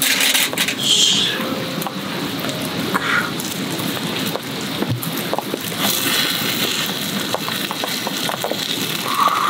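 Wood campfire crackling, with sharp pops over a steady hiss.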